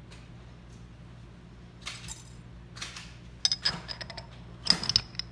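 Light metal clinks as the parts of a reusable stainless oil filter are handled, with a cluster of quick clinks and a brief metallic ring near the end.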